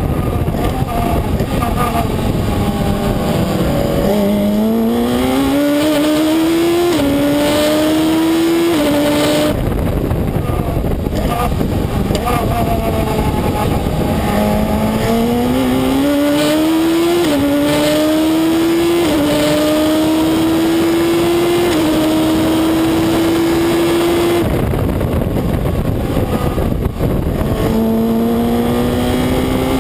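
Reynard Inverter sports racer's engine heard from the cockpit, accelerating hard with a string of quick upshifts, backing off with falling revs and downshifts into corners twice, then pulling hard again. Wind and road noise run underneath.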